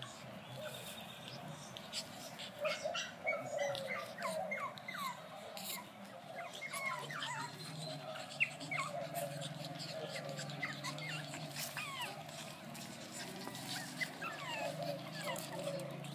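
Brussels Griffon puppies squeaking and whimpering in many short, high calls as they play-fight, with one sharp tap about halfway through.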